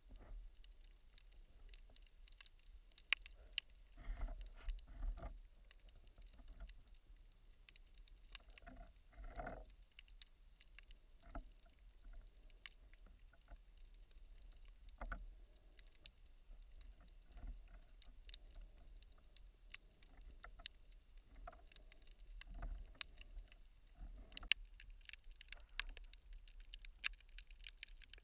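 Faint underwater ambience heard through an underwater camera: scattered sharp clicks and crackles over a low rumble, with a few soft muffled thumps.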